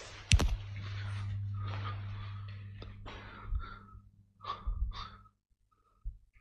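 A single sharp bang just after the start, the loudest sound, then a person's short, hard breaths over a low steady hum that cuts off about five seconds in.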